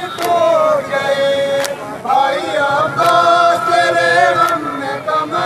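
A group of men chanting an Urdu nauha lament in chorus, with a sharp chest-beating slap (matam) landing about every second and a half.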